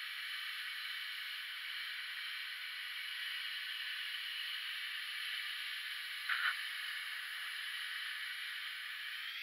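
Handheld plasma cutter cutting through 3 mm steel sheet: a steady high-pitched hiss from the arc and its air jet, with a brief louder spurt about six and a half seconds in.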